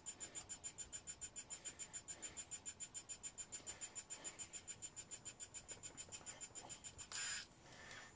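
3D pen's filament feed motor running at a low speed setting while extruding plastic, giving a rapid, even ticking with a thin high whine, about seven ticks a second. The ticking stops about seven seconds in, followed by a short burst of noise.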